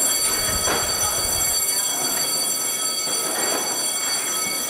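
Steady high-pitched electrical whine made of several even tones, with faint murmuring voices of workers on the factory floor.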